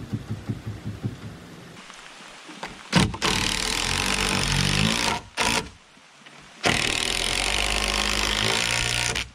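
Cordless impact driver driving a long screw into a wooden roof rafter, in two long runs with a short burst between them; during the first run the motor's pitch dips and then climbs. A run of light, quick knocks comes in the first second or so.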